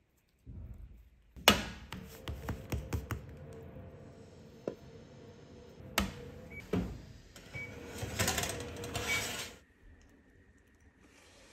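Kitchen handling sounds: a quick series of clicks, taps and knocks, with sharp knocks about a second and a half in and again about six seconds in. A noisier, rustling stretch comes near the end, then it goes quiet.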